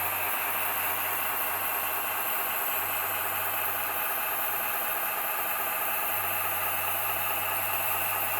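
Simulated diesel engine idling steadily, played through the RC hydraulic excavator's sound module speaker, with no hydraulic function working.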